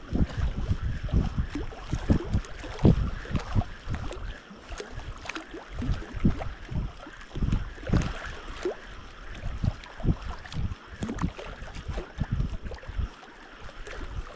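Wind buffeting the microphone in irregular low puffs and gusts.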